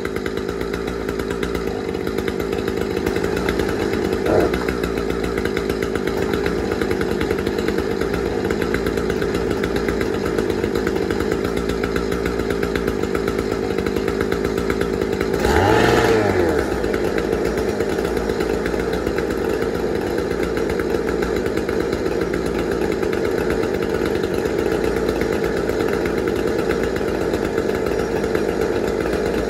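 Husqvarna 455 Rancher two-stroke chainsaw idling steadily, with one brief rev of the throttle about halfway through.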